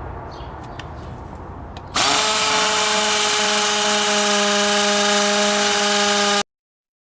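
Milwaukee 2602 M18 cordless hammer drill starting about two seconds in and running loud and steady as it bores into a concrete paver. It stops abruptly near the end. Before it starts there is a low rumble with a few light clicks.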